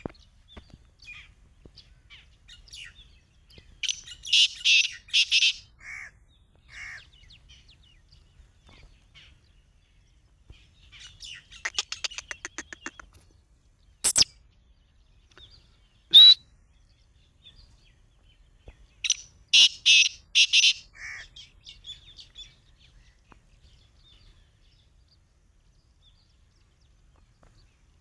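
Black francolin calling: two harsh phrases of a few loud, high notes, about fifteen seconds apart, with a quick rattling series and two single sharp notes in between.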